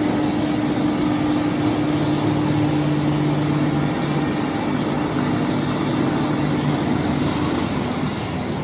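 Roller coaster chain lift running steadily as the B&M wing coaster's train is hauled up the lift hill: the drive hums and the chain rattles evenly. The hum stops near the end.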